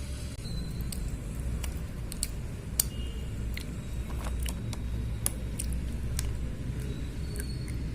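Slate pencils being bitten and chewed: irregular sharp crunching clicks, two of them louder about three and five seconds in, over a steady low rumble.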